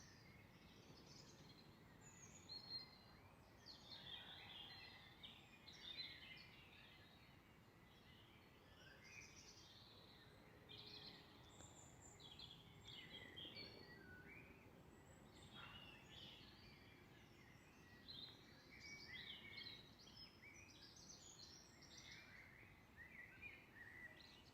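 Faint birdsong: several birds singing in a continuous stream of short chirps and phrases, over a faint low background rumble.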